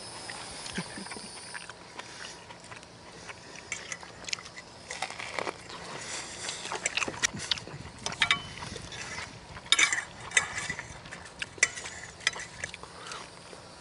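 Forks and knives clinking and scraping on plates as people eat, in scattered sharp clicks that come thickest from about six seconds in.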